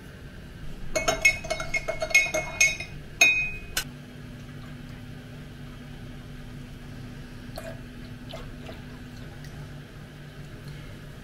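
Glassware and dishes clinking: a quick cluster of sharp, ringing chinks over about three seconds, then only a faint steady hum with a couple of light taps.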